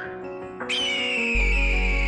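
Background music with held chords; a high whistle-like tone slides downward about two-thirds of a second in, and a deep bass note comes in just past the halfway point.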